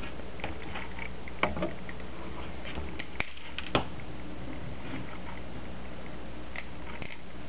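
Light clicks and taps from handling a PL-259 connector and RG-8 coax, three sharper clicks among them, over a steady low hum.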